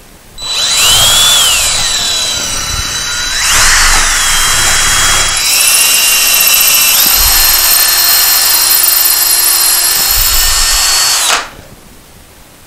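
Cordless drill boring a small pilot hole into a block of wood. The motor whine starts at once and sags in pitch as the bit bites, recovering twice. It then runs steadily and stops sharply near the end.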